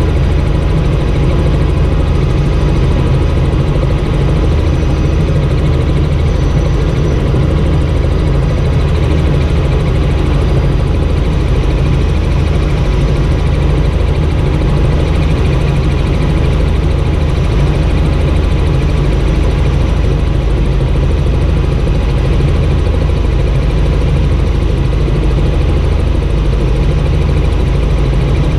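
Helicopter engine and rotor noise heard from inside the cabin in flight: a loud, steady drone, heaviest in the low hum.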